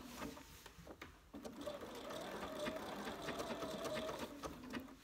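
Bernina computerised sewing machine stitching a decorative stitch, starting with a few short clicks and then running steadily from about a second and a half in until just before the end.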